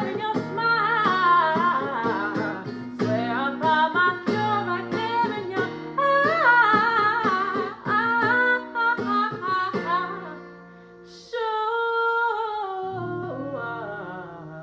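Song outro: an R&B singer's wordless vocal runs over plucked acoustic guitar, ending in one long held note that slides downward and fades out.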